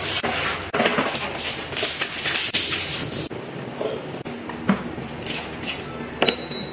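Water poured from above, splashing onto the glass top of an induction cooker for about the first three seconds, then a cloth wiping the wet surface. Near the end a plastic bowl is set down on it with a couple of knocks.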